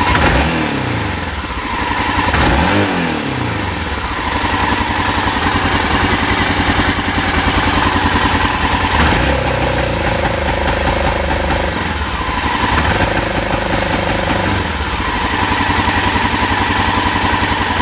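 BMW F650 Funduro's single-cylinder Rotax engine running: two short blips of the throttle near the start, each dropping back, then steady running with two longer stretches at raised revs. It has the misfire that keeps it from revving above 3000 rpm.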